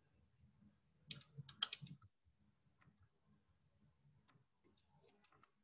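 Computer mouse and keyboard clicks: a few sharp clicks about a second in and again just before two seconds, then faint scattered ticks over a low hum.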